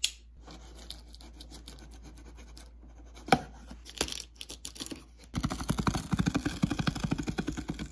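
A blade slitting the packing tape on a cardboard box. Faint scraping and a couple of sharp clicks come first, then a louder run of quick, rasping strokes for the last two and a half seconds as the blade runs along the tape.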